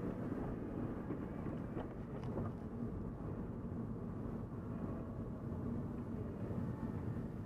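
Volvo S40 driving, heard from inside the cabin: a steady low hum of engine and road noise.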